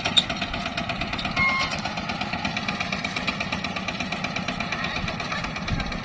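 Two-wheel walking tractor's single-cylinder diesel engine running steadily with a rapid, even pulse as it pulls a loaded trailer through a rice field. A sharp knock comes just after the start.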